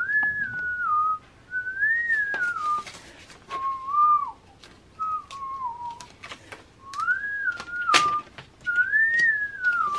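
A person whistling a tune in short phrases that rise and fall, over light clicks and crackles of a paper label sheet being handled and stickers peeled off it, with one sharp snap about eight seconds in.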